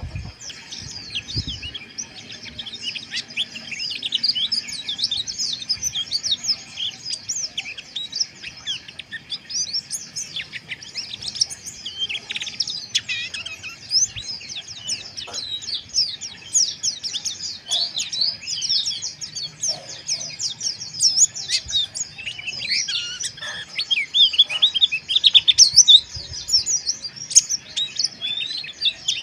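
White-eyes (pleci) in rough, rapid twittering ('ngeriwik kasar'), many quick high chirps overlapping without a break.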